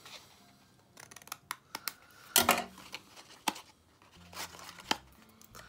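Small craft scissors making a few short snips into cardstock, followed by dry paper rustling as the scored sheet is handled and folded. The loudest snip or rasp comes about halfway through.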